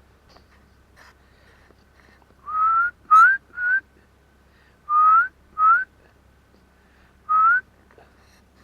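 A person whistling six short notes, each sliding slightly upward, in three groups with breath audible around them.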